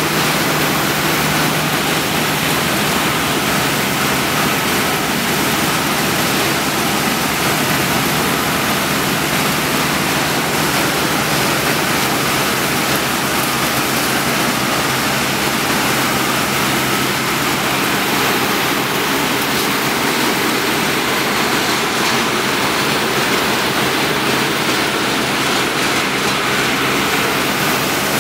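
PET bottle flake washing line running: a loud, steady rush of water and machine noise with a constant low motor hum underneath.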